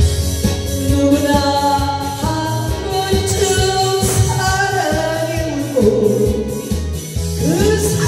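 A woman singing a Korean song into a karaoke microphone over a backing track with a steady beat, holding and sliding between long notes.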